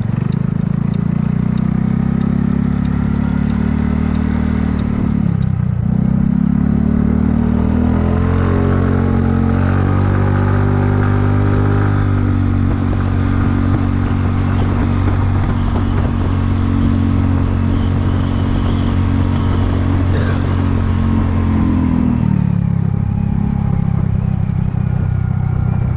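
Kymco People 250 scooter's single-cylinder four-stroke engine running under way, its exhaust leaks patched with JB Weld high-heat epoxy. The engine note dips and picks up again about five seconds in, rises as it accelerates, holds steady at cruising speed, then falls as it slows near the end.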